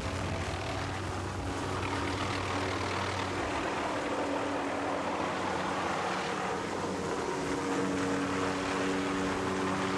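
Helicopter hovering close by, its rotor and engine running steadily with a constant low drone.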